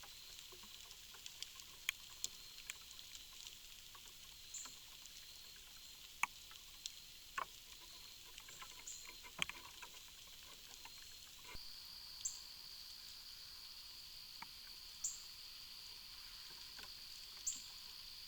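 Faint backyard ambience picked up by a trail camera: scattered sharp clicks and light rustles, short high chirps every two to three seconds, and a steady high-pitched buzz that grows louder about two-thirds of the way through.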